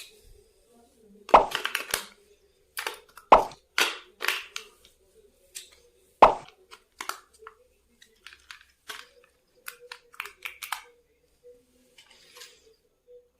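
Irregular sharp clicks and knocks from handling a boxed toy car and its packaging, with three louder knocks in the first half and fainter, sparser clicks after. A faint steady hum runs underneath.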